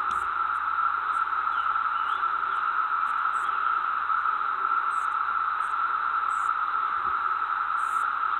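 A steady, even hiss with no rise or fall.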